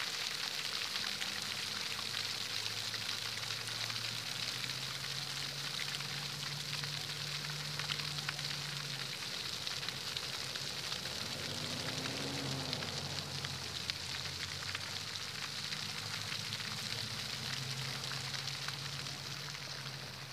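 Steady crackling hiss of outdoor ambience, with a faint low hum underneath that rises and falls in pitch once, about twelve seconds in.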